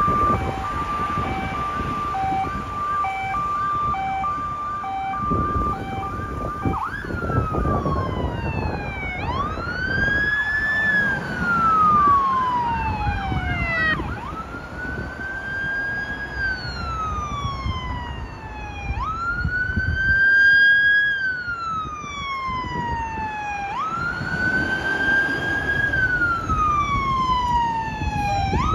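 Emergency sirens of a fire rescue ambulance and its police escort approaching. First a pulsing steady tone with a fast yelp, then from about seven seconds in a wail that rises quickly and falls slowly about every five seconds, over road traffic noise.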